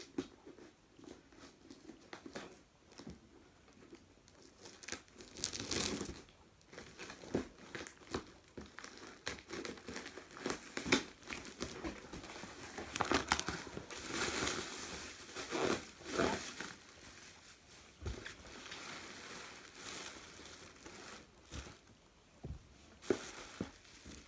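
A cardboard parcel being opened by hand: packing tape tearing, box flaps pulled open and packing material inside crinkling and rustling in irregular bursts.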